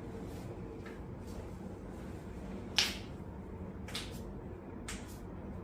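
Joints popping under a chiropractor's manipulation: a sharp crack a little under three seconds in, then fainter pops about one and two seconds later.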